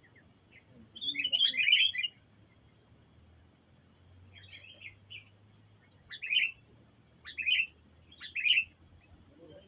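Sooty-headed bulbul (kutilang) calling in short, chirpy phrases: a longer burst about a second in, a softer phrase midway, then three short calls about a second apart near the end.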